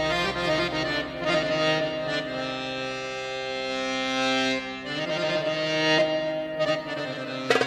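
Instrumental music with sustained held notes over a low drone, and one long held chord in the middle.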